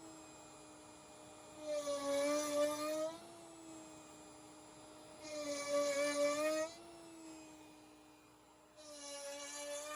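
A CNC router spindle turning a 7/8" box cove bit whines steadily and cuts into red-oak-veneered hardwood plywood three times, each cut lasting about a second and a half, carving a half-sphere divot. The whine drops a little in pitch under each cut and rises again as the bit runs free between divots.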